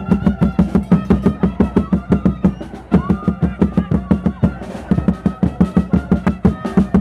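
Chirimía band playing: a quick, steady drumbeat with a high, thin reed melody over it, which holds a long note about three seconds in.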